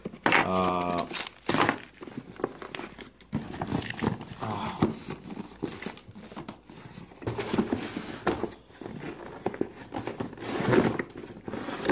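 Cardboard boxes and packaging handled during unpacking: flaps and packing scraping and rustling, with scattered knocks and clicks as parts are set down on a wooden table.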